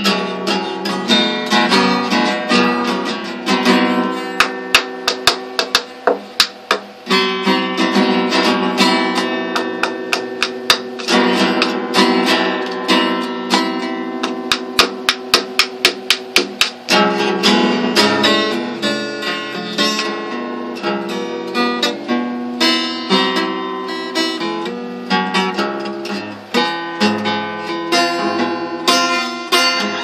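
Acoustic guitar played solo as an instrumental: repeated strummed and picked chords in a steady rhythm, moving through several chord changes, with no singing.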